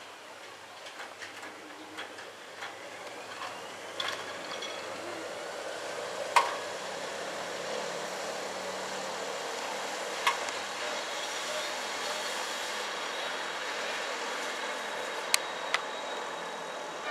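Electric rack-railway trainset of the Tramway du Mont Blanc running away uphill: a steady running noise with a few sharp metallic clanks, about four in all.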